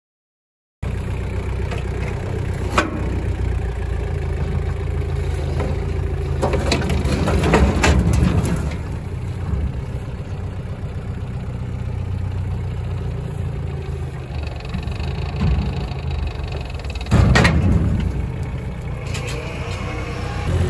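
Lamborghini R1.55 DT tractor's diesel engine running steadily, cutting in about a second in. A few short knocks and rattles sit over it, the loudest about 17 seconds in.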